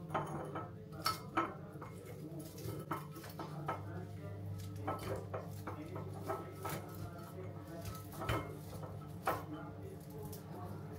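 Artificial berry and pine stems knocking and clinking against a clear glass jar as they are pushed in and moved around. The light, irregular taps and clinks come every second or so, with a few louder knocks.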